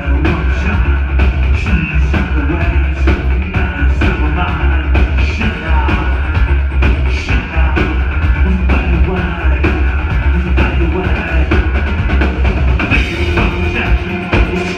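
Industrial band playing live and loud, with a pounding drum beat, heavy bass and synthesizers.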